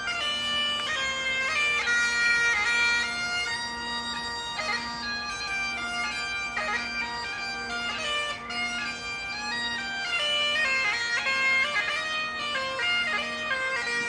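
Bagpipes playing a melody over a steady, unbroken drone, with quick grace notes between the held melody notes.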